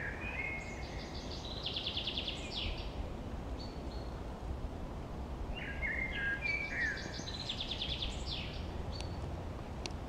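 A songbird singing two similar phrases about six seconds apart, one near the start and one past the middle. Each phrase is a few short whistled notes that run into fast, high trills. A low, steady rumble runs beneath.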